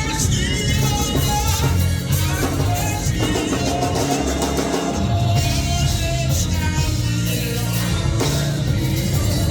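Live gospel music from a church band: drum kit and bass with a voice singing over it, steady and loud.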